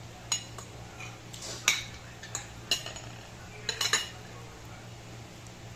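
Metal spoon clinking and scraping against a ceramic bowl: a string of sharp clinks over the first four seconds, the loudest about one and a half seconds in.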